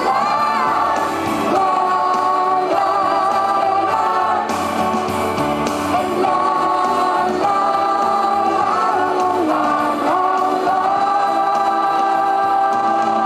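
Live pop song played loud through a stadium sound system: a sung chorus of several voices at once, long held notes layered together.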